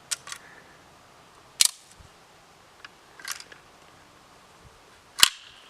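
Sharp metallic clicks and clacks of a PPS-43C's action being worked by hand, about five in all, the loudest about a second and a half in and near the end. This is the clearing of a surplus cartridge that failed to fire: its hard primer was struck but did not go off.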